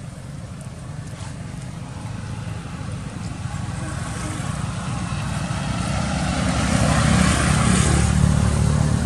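Motorbike engine on the road, growing steadily louder as it approaches and passes, loudest about seven to eight seconds in.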